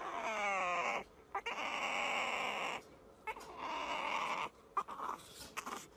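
A bottle-fed baby pet calling in bursts: a run of quick whines at first, then three longer, rougher squeals with short pauses between them.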